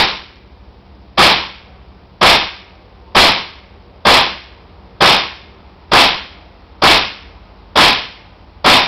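WE G39C gas blowback airsoft rifle firing single shots, about ten sharp pops at roughly one a second, each trailing off briefly. It is fitted with a silencer that does little to quiet it.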